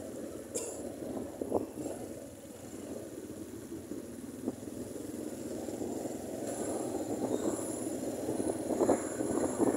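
Motorcycle riding along a road, its engine and wind noise heard from the rider's seat, growing gradually louder in the second half.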